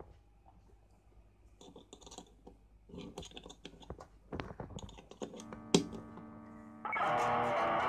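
A 6.35 mm guitar jack plug being pulled out and pushed into another input of a homemade four-channel mini mixer, giving scattered clicks and crackles with one sharp pop a little before the end. About a second before the end, an electric guitar chord through a distortion pedal starts ringing, the loudest sound here.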